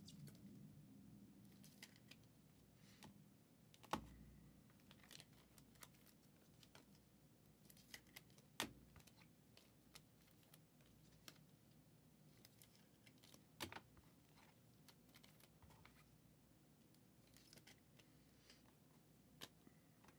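Near silence with faint, irregular clicks and light rustling from trading cards being handled, with three sharper clicks about 4, 9 and 14 seconds in.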